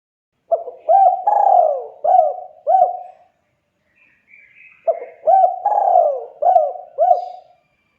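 Spotted dove cooing: two phrases of about five quick coos each, a couple of seconds apart, as a lure call for rival doves.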